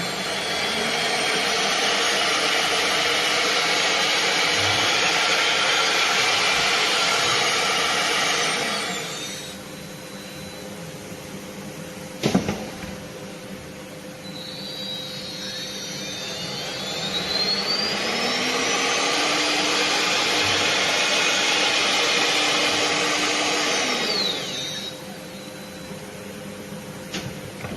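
CNC router with four spindle heads running: the spindles whine up to speed, run with a loud noisy rush, then wind down, twice over. A sharp click comes about twelve seconds in, between the two runs.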